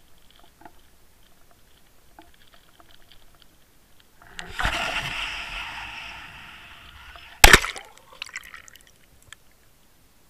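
Rushing air noise on a WaterWolf underwater camera's microphone as the camera swings through the air for about three seconds, then a loud, sharp smack as it hits the water, followed by brief bubbling and crackling.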